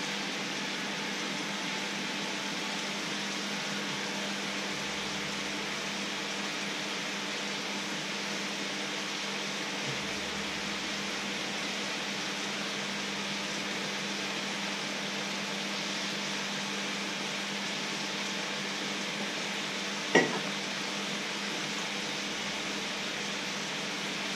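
Water boiling hard in a wide steel pan on an electric hob: a steady hiss with a steady low hum under it. One sharp click about twenty seconds in.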